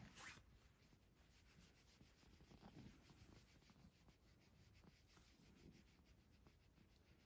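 Faint, soft rubbing of a hand stroking a cat's belly fur, with a slightly louder rustle right at the start.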